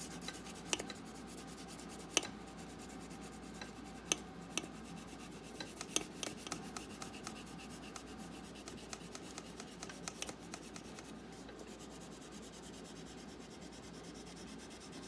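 The side of a peeled wax crayon rubbing lightly across paper while colouring in a large area: a soft, steady scratchy rasp, broken by a few sharp ticks.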